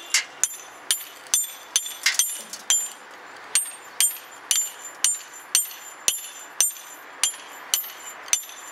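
Hand hammer striking a steel cold chisel held against stone and mortar, chiselling out loose masonry: steady, even blows about two a second, each a sharp clink with a brief high metallic ring.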